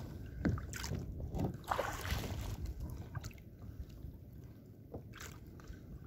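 Small waves slapping and splashing against the side of a kayak at sea, over a steady rumble of wind on the microphone. A few splashes come close together in the first two seconds, with another about five seconds in.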